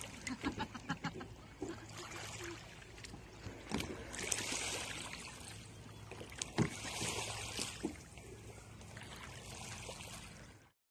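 A kayak paddled on a lake: soft splashes and water swishing from the paddle strokes, in a few longer swells with light knocks between. The sound stops abruptly near the end.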